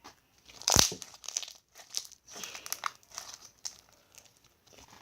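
Slime being squished and poked by hand, giving irregular crackling clicks and pops, the loudest a sharp pop about a second in.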